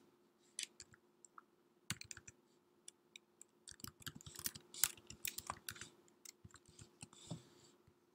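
Typing on a computer keyboard: sharp key clicks in quick, irregular runs, thickest around the middle, with short pauses between them.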